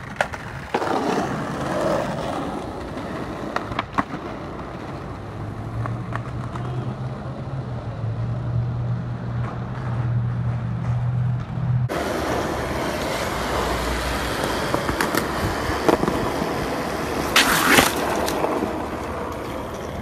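Skateboard wheels rolling on pavement, with scattered sharp clacks of boards popping and landing. A low steady hum runs through the middle stretch, the sound changes abruptly about twelve seconds in, and a louder burst comes near the end.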